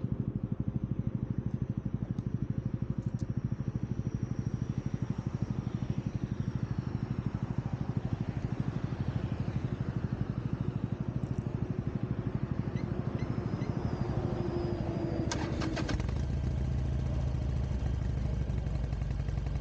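Motorcycle engine running with a steady rapid beat. About fifteen seconds in there is a short burst of clicks, after which the engine note becomes smoother and steadier.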